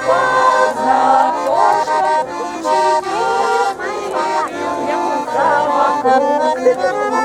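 Accordion playing a traditional-style tune, with chords of held notes.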